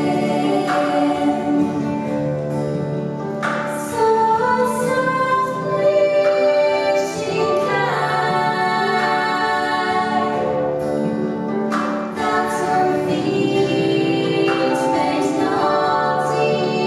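A woman singing a slow traditional Irish song, accompanied by acoustic guitar and Celtic harp.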